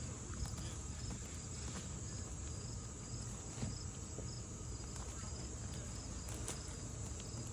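Chorus of insects chirping: a steady high-pitched whine with a row of short, evenly repeating chirps under it.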